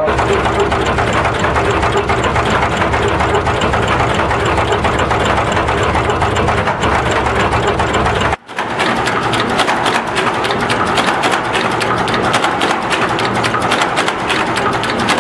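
Automatic radial component insertion machine running: a steady, rapid mechanical clatter. It cuts out briefly about halfway through, then carries on with thinner, sharper rapid clicking.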